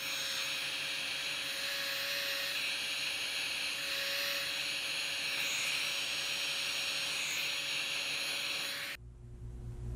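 Heat gun running, blowing hot air to shrink heat-shrink tubing over an extension cord splice: a steady rushing hiss with a faint steady whine, switched off about nine seconds in.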